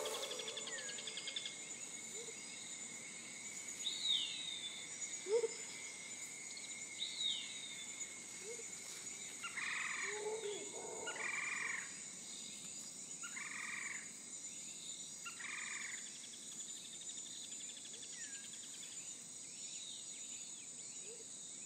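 Faint ambience: a steady high-pitched drone with a few short falling chirps, and four short croak-like calls about two seconds apart midway through.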